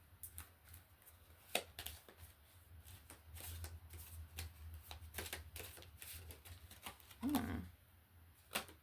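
A deck of oracle cards being shuffled and handled: a long run of irregular soft flicks and taps, with a brief murmured voice about seven seconds in.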